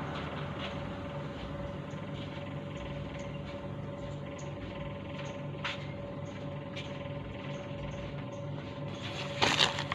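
Steady background hum with a faint constant tone, a few light ticks, and a short louder noise near the end.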